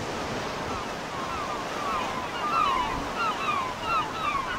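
Surf washing and breaking on a shore, a steady rushing hiss. From about a second in, gulls call over it in a run of short falling notes, a few a second.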